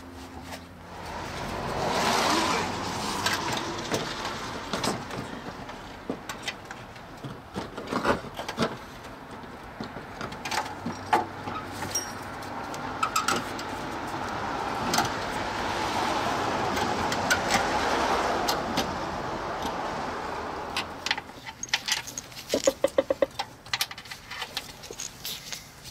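Hand tools clinking on metal and a socket ratchet clicking as the intake manifold bolts are run down. A broad rushing noise swells and fades twice, and a quick even run of ratchet clicks comes near the end.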